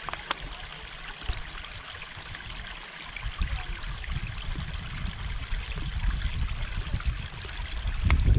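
Running water trickling steadily, with a low wind rumble on the microphone growing from about three seconds in.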